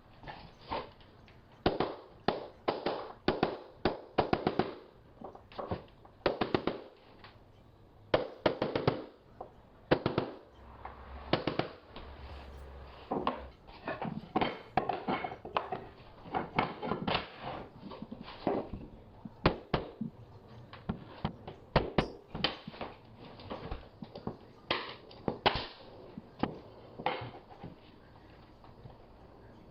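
Hardwood floor boards being laid and nailed down: irregular runs of sharp knocks and taps as boards are knocked tight and fastened.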